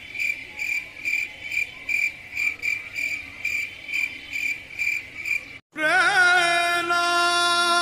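Cricket-chirp sound effect: one high chirp repeating about two or three times a second, cut off abruptly after about five and a half seconds. Then a loud, long, drawn-out wavering wail from a woman, as if crying.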